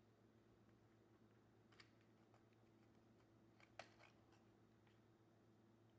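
Near silence with a few faint, sharp clicks of small plastic electronic parts being handled: one about two seconds in and a pair just before four seconds, the second of these the loudest.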